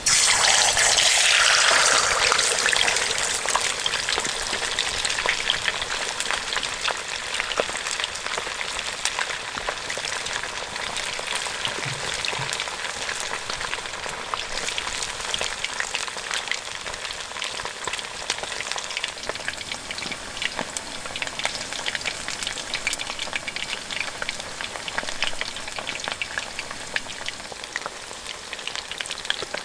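Chicken deep-frying in hot oil in an iron wok. It starts with a loud burst of sizzling that eases over about two seconds into a steady crackling sizzle.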